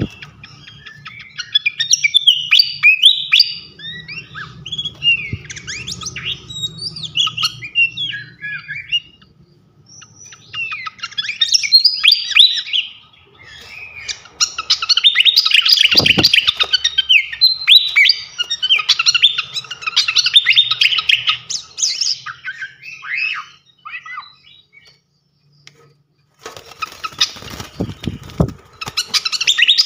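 A srikatan kipas songbird singing long phrases of fast, varied, high chirps and twitters, broken by short pauses. Two low thumps are heard, about halfway through and near the end.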